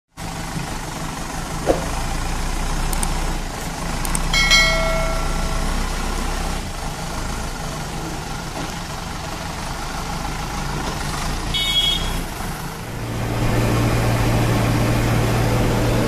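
Diesel engine of a Kirloskar-engined JCB 3DX backhoe loader idling steadily. A short horn toot sounds about four and a half seconds in, and the engine hum grows louder about three seconds before the end.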